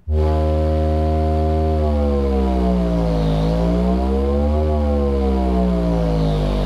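Sundown Audio X-12 v.2 12-inch subwoofer in free air playing a full-power frequency sweep: a loud, low tone with many overtones that starts suddenly, its pitch falling, rising to a peak about halfway through and falling again, as the cone moves through long excursion.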